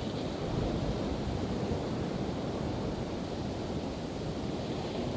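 Pacific Ocean surf washing steadily, mixed with wind rumbling on the microphone.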